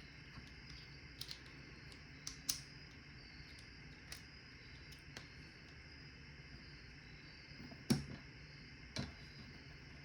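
Small metal parts of a Paclock 90A Pro padlock clicking and tapping as they are handled during reassembly: scattered light clicks, with two louder knocks about a second apart near the end.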